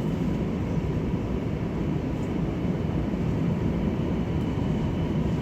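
Steady rumble and hum inside an MRT Line 3 train car, with a faint steady tone above it and no sudden sounds.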